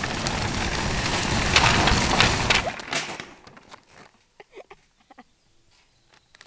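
Metal shopping trolley rolling fast over tarmac, a loud rushing rattle with a few sharp clicks that cuts off about three seconds in, leaving only faint ticks.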